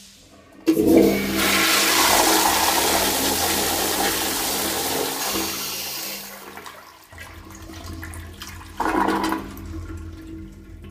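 1990 American Standard Afwall toilet flushing: a sudden loud rush of water starts about a second in and runs for about five seconds. It then eases into a quieter running refill, with a brief louder surge near the end.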